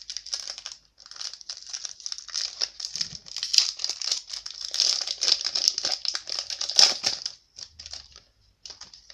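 Foil trading-card pack wrapper crinkling and crackling as a pack is torn open and handled, thinning to a few scattered crackles near the end.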